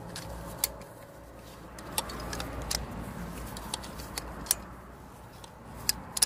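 Thread-insert installation tool being turned by hand in a spark plug hole, driving a spark plug thread insert into the cylinder head, with sharp metallic clicks at irregular intervals.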